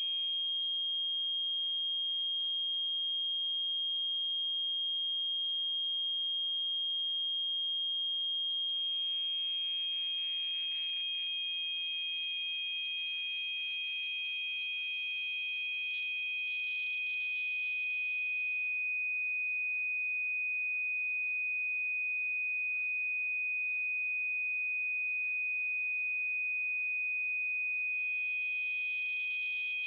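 Tinnitus-masking sound: two steady high-pitched sine tones, each wrapped in a soft hiss, cross-fading slowly. The lower tone fades in about nine seconds in, the higher one fades out past the middle, and the higher one returns near the end.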